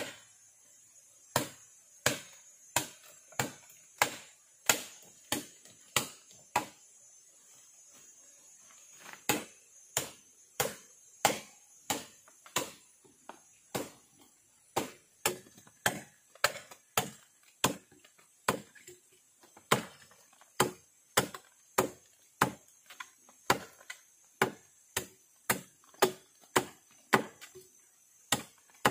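Steady chopping into wood with a blade, about one and a half strokes a second; the strokes stop after about six seconds, pause for about three, then carry on without a break. A steady high-pitched hiss runs underneath.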